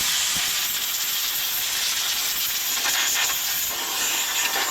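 Steady hiss of a compressed-air blast blowing off the lathe VFD's parts as they are cleaned.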